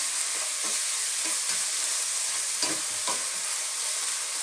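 Mixed seafood, tomato and carrots sautéing in oil in a pot: a steady sizzle, with a few scrapes and taps of a spatula stirring them.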